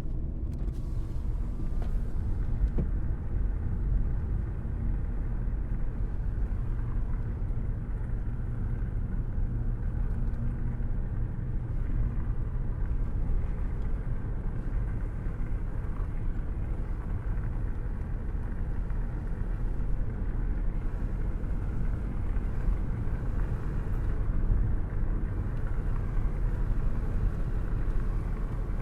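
A car cruising at a steady speed with a window open: a steady low rumble of road and engine noise with wind rushing past. The sound holds even throughout, without any clear changes.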